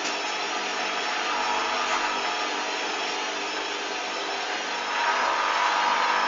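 Hoover Dynamic washing machine running: a steady motor whir and hum with a high whine that wavers slowly in pitch.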